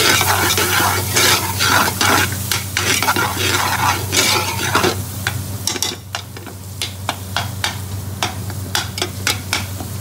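Metal spoon stirring and scraping a thick onion and spice masala frying in a large metal pot, with sizzling. The scraping is dense for about the first five seconds, then thins to separate clicks of the spoon against the pot.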